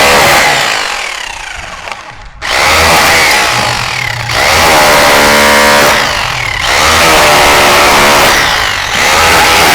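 Stanley SHR263K rotary hammer in chisel-only mode, hammering a point chisel into a wall. It runs in loud bursts of a few seconds with brief let-ups between them, dropping off after about half a second and starting up again a couple of seconds in.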